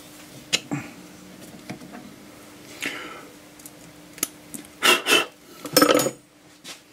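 Metal clicks, clinks and scrapes as a small chuck is loosened with a tommy bar and a drilled brass disc is lifted out and handled, with the loudest clatters about five and six seconds in. A faint steady hum runs underneath.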